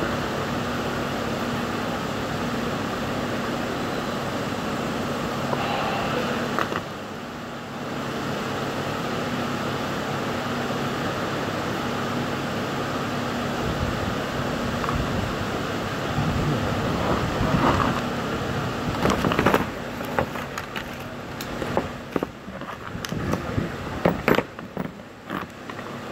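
Steady hum and rush of workshop ventilation, dipping briefly about seven seconds in. In the last third, scattered clicks, knocks and rustles of wires and tools being handled at the bench.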